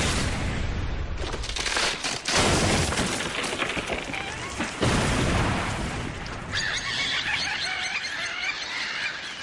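Anime sound effect of a bomb blast: a loud explosion with a rumbling, crackling tail of debris and shattering. A high, fluttering chatter comes in during the last few seconds.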